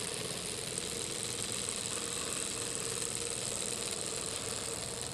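Miniature vertical Stirling engine running fast and steadily on the heat of its alcohol burner, an even, continuous mechanical running sound with no change in speed.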